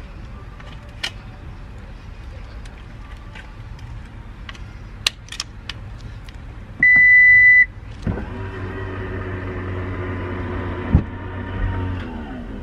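Light clicks and knocks as a folded pram is settled into a car boot. Then the power tailgate gives one loud, steady beep of nearly a second, and its motor runs for about four seconds as the tailgate lowers, winding down in pitch as it nears closed.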